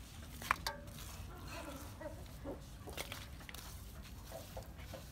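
Wet mud being squeezed by hand and dropped into a metal basin, with a few sharp clicks, the strongest about half a second in, and soft clucking of chickens.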